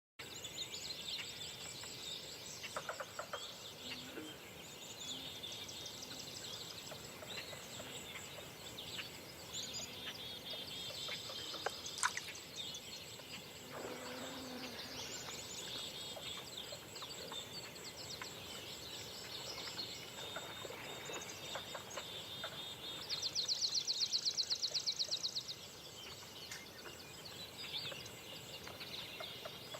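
Dawn chorus of several birds singing and chirping over one another, with a steady background hiss. About two-thirds of the way through, a loud, rapid trill runs for two or three seconds.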